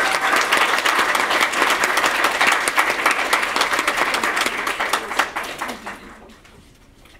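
Audience applauding, with separate claps standing out. It fades and dies away about six seconds in.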